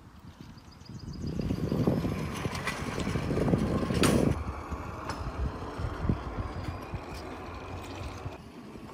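Hand-pushed railway track-measuring trolley rolling along the steel rails, its metal wheels making a rattling rumble that builds about a second in. There is a sharp click about four seconds in, after which the rolling goes on more quietly.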